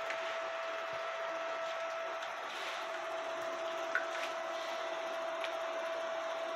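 Reef aquarium equipment running: a steady hum with one constant tone, typical of the row of small cooling fans over the tank, under a hiss and trickle of water churning at the surface and pouring from an outlet pipe. A few faint clicks.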